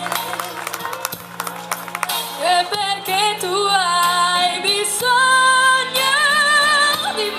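A woman singing an Italian song into a microphone over instrumental accompaniment; her melody comes in about two seconds in, with long held notes sung with vibrato near the end.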